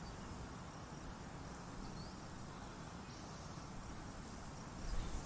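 Quiet outdoor ambience: a steady faint hiss with a few faint high chirps, and a brief low rumble near the end.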